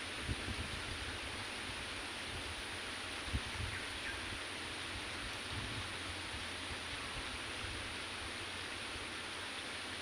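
Steady outdoor background hiss in the rice paddy, with a few soft low knocks near the start and one sharper knock about three seconds in.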